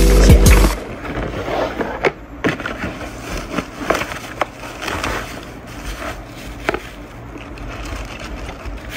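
Background music that cuts off within the first second, then cardboard packaging being handled: a box slid out of a cardboard mailer and items set down on a wooden table, with scattered knocks, taps and rustling.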